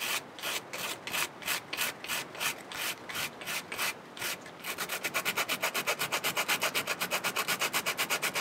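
Sandpaper rubbed by hand over the end of a birch bark strip, thinning it down. The strokes come about two or three a second, then quicken to a fast, even rhythm of about six a second over the second half.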